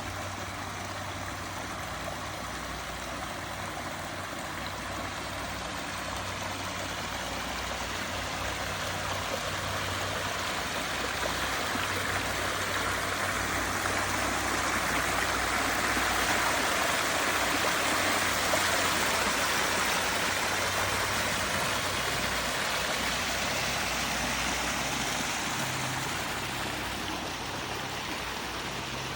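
Water running and splashing over a garden pond waterfall as a steady rush, growing louder toward the middle and easing off near the end.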